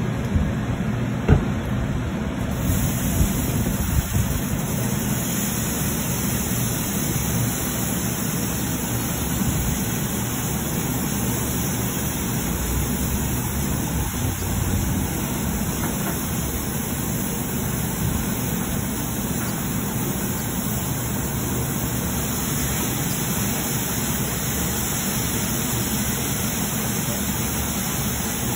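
A Mark VII soft-touch rollover car wash at work: water spraying while the cloth brushes and gantry run over a car, making a steady rushing noise. There are a few knocks in the first four seconds, and the hiss grows brighter about two and a half seconds in.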